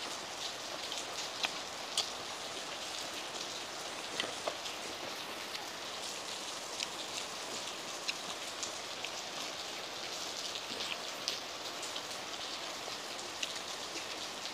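Heavy rain falling steadily: a dense, even hiss with scattered sharp ticks of drops.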